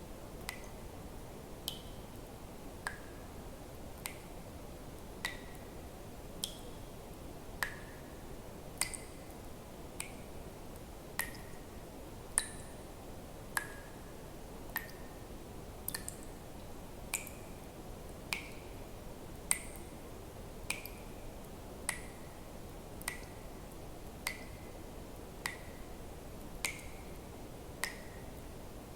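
Water drops dripping at an even, slow pace, about one every 1.2 seconds, each a short click with a brief ping whose pitch varies a little from drop to drop, over a faint steady hiss.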